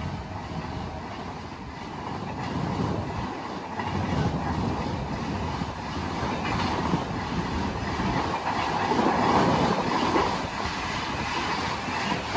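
August Kranti Tejas Rajdhani Express running through the station at about 130 km/h. Its coaches make a steady rush of wheel and air noise that builds to its loudest about nine seconds in, as the train's tail end passes.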